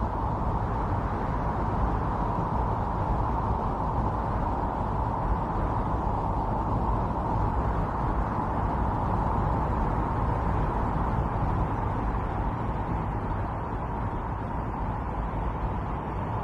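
Steady howling wind of a snowstorm, a continuous dense rush centred low to mid in pitch that swells and eases only slightly.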